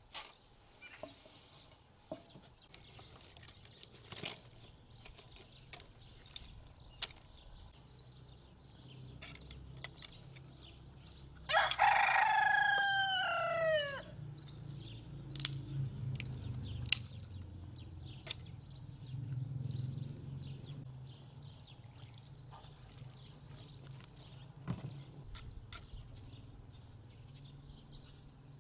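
A rooster crows once about halfway through: one crow of about two and a half seconds, falling in pitch at the end. Around it are scattered small clicks and knocks of sticks being handled.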